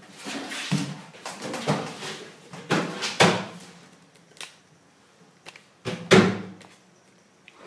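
Wooden cubby shelving being knocked and bumped about: half a dozen loud, sudden knocks and bangs, each ringing briefly in a small room, with a quieter spell before a final loud bang about six seconds in.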